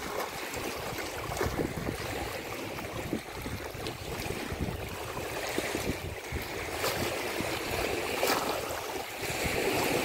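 Choppy reservoir water lapping and splashing against a grassy bank, in an irregular series of small splashes over a steady wash. Wind gusts on the microphone add a low rumble.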